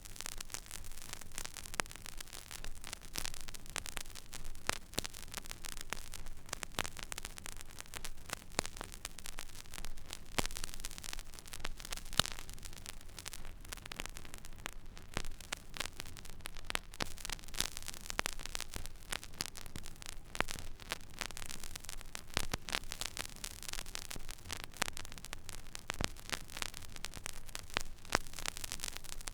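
Record player stylus riding an empty vinyl groove: steady surface hiss with dense crackle, a few louder pops, and a low hum underneath.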